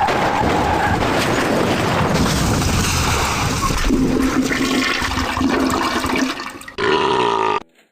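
Toilet flushing: loud rushing water that dies away after about six and a half seconds, followed near the end by a short pitched sound.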